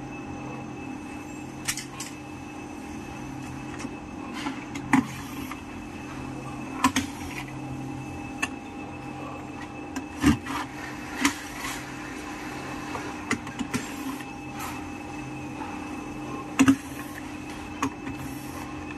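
Irregular clicks and light knocks of small parts and screws being handled on a garment steamer's plastic base while its heating tube is fitted, about fifteen in all, over a steady hum.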